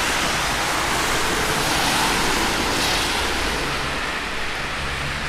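Traffic on a wet road: a steady rushing hiss of tyres, with a low engine hum coming in about three and a half seconds in.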